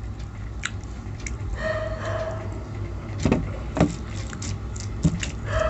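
Fingers mixing rice and dal on a steel plate, with a few sharp clicks of hand or ring against the metal, over a steady low hum.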